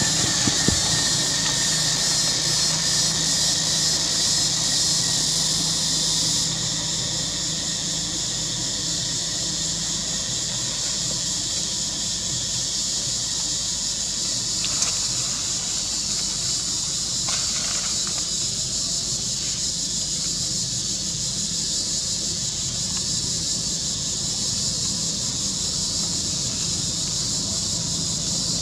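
A steady high-pitched hiss; its highest part drops away about six and a half seconds in.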